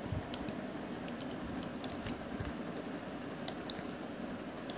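A handful of scattered sharp clicks from a computer mouse and keyboard over a steady background hiss.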